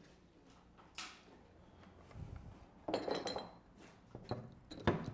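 Small glass spice jars clinking against each other and being set down on a wooden workbench: a few separate sharp clinks, the loudest near the end.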